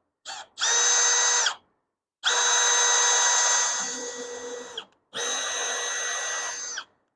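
Cordless drill running in short trigger pulls: a brief blip, then three runs of a steady high whine of one constant pitch, the middle one the longest, with pauses between.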